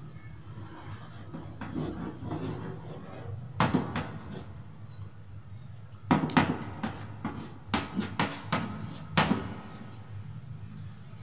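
Chalk tapping and scraping on a blackboard as Arabic script is written: scattered sharp taps, one about a third of the way in and a run of them in the second half.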